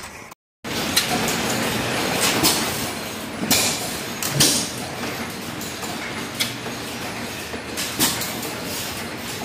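Antique flywheel stationary engines running, a steady mechanical clatter broken by sharp irregular bangs, about one a second.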